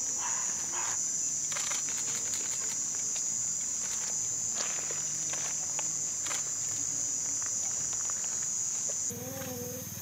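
Night insects, crickets or katydids, trilling in one steady high-pitched chorus, with a few faint clicks. Near the end the sound changes abruptly to a low buzz with a wavering tone over it.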